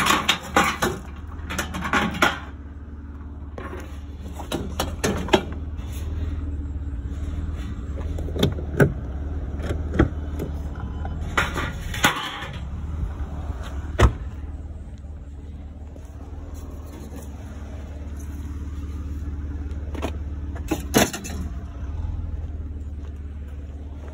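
Scrap metal being handled and loaded into a trailer, giving scattered sharp knocks and clanks over a steady low engine rumble.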